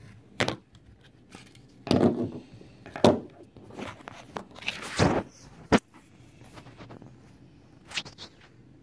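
Handling noise: a string of knocks, scrapes and rubs, the loudest about two, three and five seconds in, as a 3D-printed plastic spine model held with disc magnets is taken apart and moved about.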